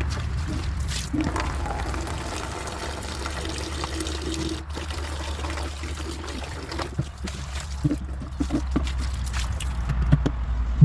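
Water running and trickling, with a few short knocks and clatters in the second half and a steady low hum underneath.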